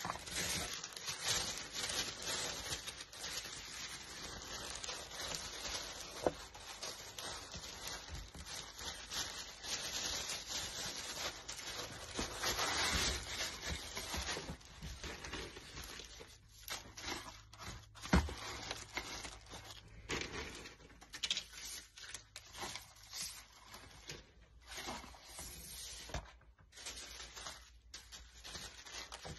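Tissue paper rustling and crinkling as it is spread and folded into a cardboard box. About halfway through it thins out to scattered soft crinkles and light taps as paper shred filler is pressed in around small boxed soaps.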